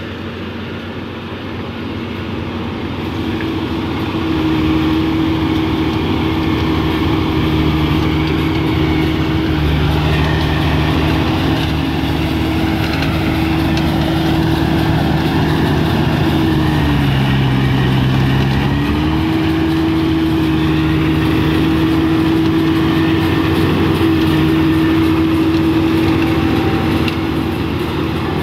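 Kubota DC-35 rice combine harvester running steadily as it drives through the paddy cutting and threshing rice. Its diesel engine note gets louder a few seconds in, dips in pitch about two-thirds of the way through, then comes back up.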